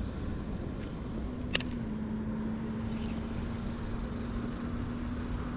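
Steady outdoor rumble and hiss, with a low, even hum that starts about a second in and runs on. A single sharp click comes just after the hum begins.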